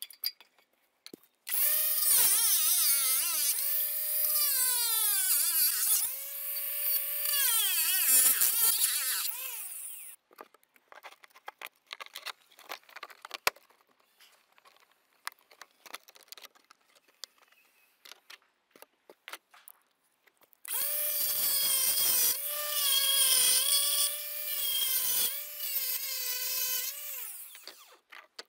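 Cordless angle grinder grinding down the edges of roof tiles that sit too high under a dry verge, in two long runs; its high whine dips in pitch as the disc bites into the tile and recovers between passes. In between, short clicks and knocks of the verge pieces being handled and fitted.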